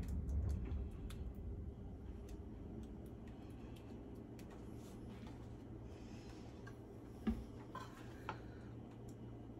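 Quiet kitchen handling noise over a steady low hum: faint, scattered clicks and taps of utensils, then a single louder knock about seven seconds in as a spoon goes into a pan of sausage filling.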